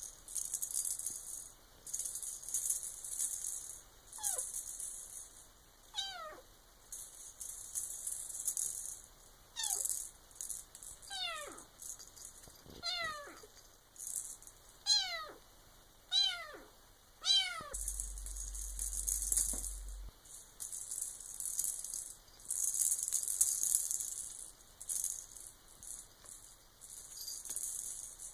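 A silver Bengal kitten giving a series of short meows that fall in pitch, bunched in the middle stretch. Throughout there are repeated bursts of high rattling, as from a rattle toy being shaken or batted.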